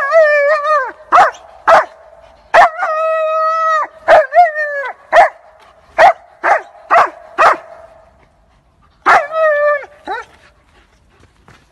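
German Shepherd dog barking and whining: about ten short, sharp barks mixed with drawn-out, held whining calls of up to a second, with a last burst of whines and barks about nine seconds in.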